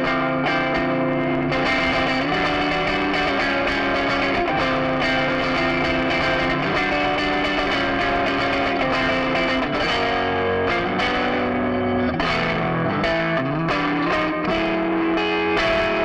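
Electric guitar with single-coil pickups played through effects pedals into an amp: ringing chords and picked notes, with notes sliding in pitch a little past the middle.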